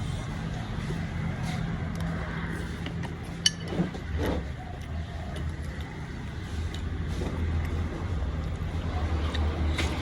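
A motor vehicle's engine running with a steady low hum that deepens about four seconds in, and a couple of sharp clinks about three and a half and four seconds in.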